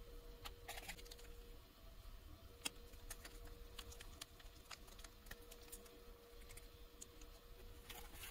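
Faint, scattered clicks and soft crinkles of a small plastic sauce sachet and plastic bento tray being handled, with a sharper click about a third of the way in and a louder crinkle right at the end. A faint steady hum sits underneath.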